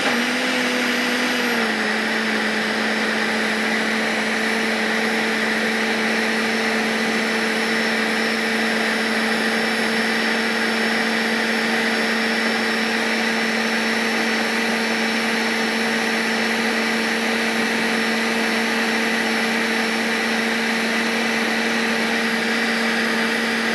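Countertop electric blender running steadily, puréeing a watery green masala of mint and coconut. Its motor pitch drops slightly about a second and a half in, then holds steady.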